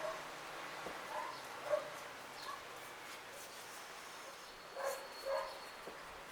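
An animal giving short, faint calls, about five in all: a pair near the start, one a little before 2 s, and two close together about five seconds in.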